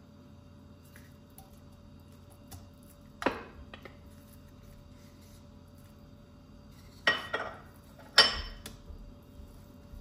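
Kitchenware clinking while cooking: three sharp knocks with a brief ring, one about three seconds in and two close together near the end, among a few lighter clicks.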